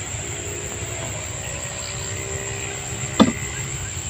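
A steady low rumble with a faint high steady whine above it. One sharp knock about three seconds in is the loudest sound.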